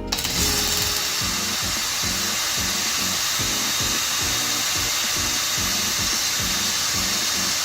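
Electric drill with a small bit running steadily for about eight seconds with a constant high whine, drilling out a screw head in a laptop's case; background music plays underneath.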